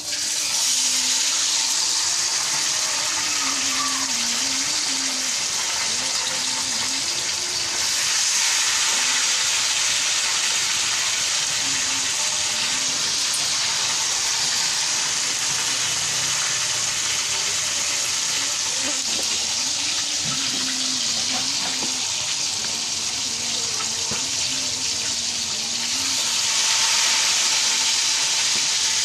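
Hot oil sizzling steadily in a wok as battered pieces deep-fry. It starts abruptly and grows louder twice, about eight seconds in and near the end.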